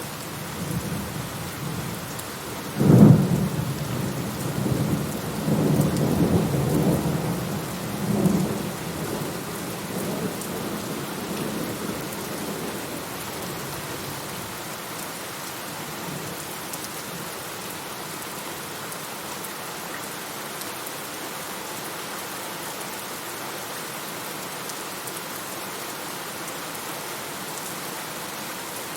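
Steady rain with a thunderclap: a sharp crack about three seconds in, then rolling rumbles for several seconds that fade out, leaving the even hiss of rain.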